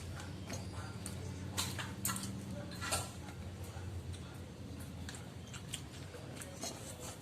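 A person chewing and eating close to the microphone, with scattered sharp clicks, the loudest about one and a half, two and three seconds in, over a low steady hum.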